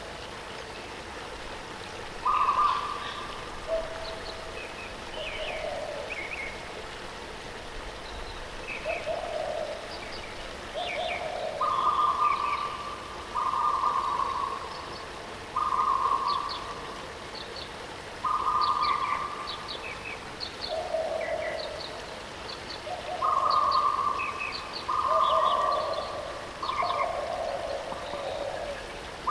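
Birds calling over the steady rush of a waterfall: repeated short, level-pitched notes at a low and a higher pitch, one or two every couple of seconds, with quick high chirps scattered between them.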